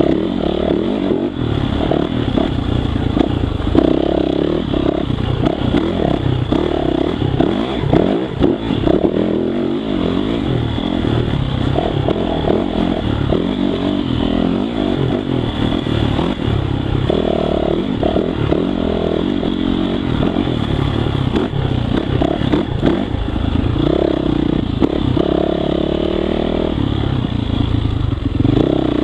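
Yamaha YZ450F's 450 cc four-stroke single-cylinder engine running under load, its revs rising and falling again and again.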